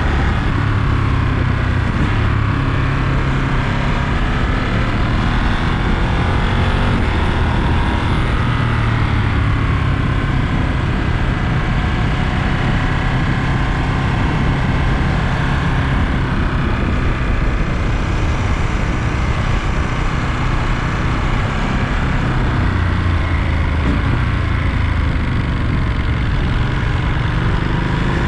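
Ducati Monster 937's 937 cc Testastretta V-twin running under way, its revs rising and falling gently and continuously.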